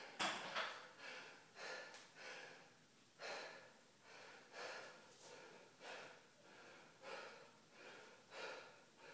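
A man breathing hard and fast, short gasping breaths about one a second, winded from a set of barbell squat snatches.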